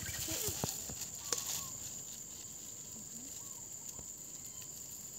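Steady high-pitched insect drone, with a couple of short faint voice sounds and two light clicks in the first second and a half.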